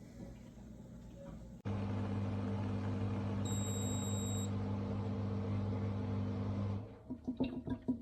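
Portable electric espresso machine's pump starting with a sudden steady hum, running for about five seconds, then breaking into a quick run of sputtering clicks.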